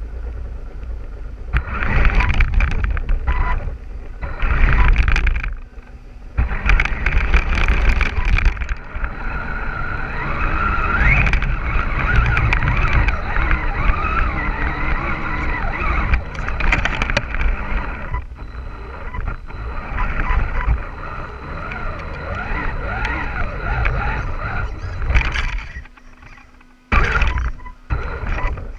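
Axial Wraith RC crawler heard from its own onboard camera as it drives over dirt and leaves: the electric motor and drivetrain whine, rising and falling with the throttle, over the noise of the tyres and chassis bumping across rough ground. The first few seconds come in short stop-start surges, then the whine runs on steadily before falling away briefly near the end.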